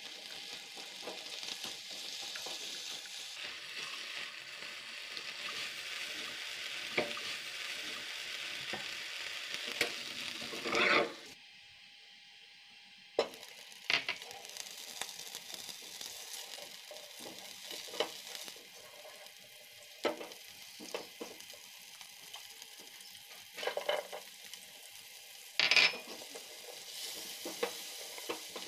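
Vegetables sizzling in a frying pan while a silicone spatula stirs them, with scraping strokes against the pan and a loud scrape about eleven seconds in. After a sudden cut the sizzle is quieter: chopped onion frying in butter in a saucepan, stirred with the spatula, with a few louder scrapes near the end.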